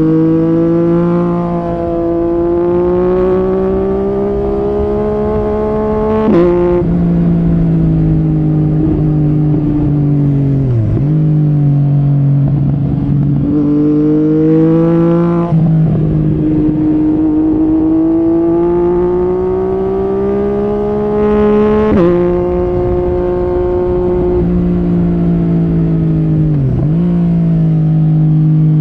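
Yamaha MT-09 SP's inline-three engine through an Akrapovic carbon racing exhaust, under way: the note climbs steadily through each gear and drops sharply at three upshifts, about six, fifteen and twenty-two seconds in. Twice, around eleven and twenty-seven seconds, the throttle is briefly closed and the note dips before pulling again.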